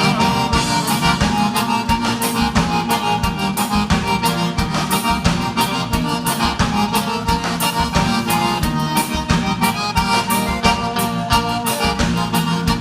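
Live gaúcho vaneira band playing an instrumental break, the accordion carrying the melody over a steady, quick drum beat and bass.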